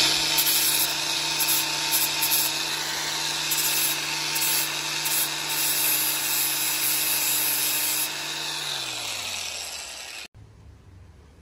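Angle grinder with an abrasive disc sanding the wooden handle scales of a clamped knife. There is a steady motor whine under a loud grinding hiss. About 8 s in the disc comes off the work and the motor winds down with falling pitch, then the sound cuts off abruptly.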